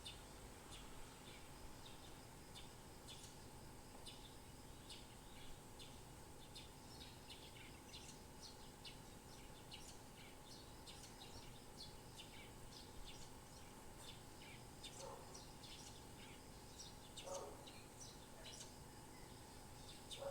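Birds chirping, faint: many short, high chirps throughout, with a few lower calls about two-thirds of the way in and near the end, over a faint steady hum.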